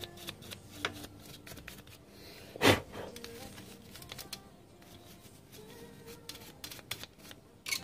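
Small clicks and knocks of an opened HF transceiver's metal chassis and tools being handled on a workbench, with one much louder knock about two and a half seconds in and another sharp click near the end.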